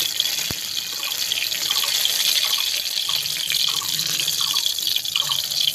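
Hot mustard oil sizzling and crackling steadily in a kadai as fried stuffed pointed gourds are lifted out with a metal spatula. There is a single sharp clink of the spatula on the pan about half a second in.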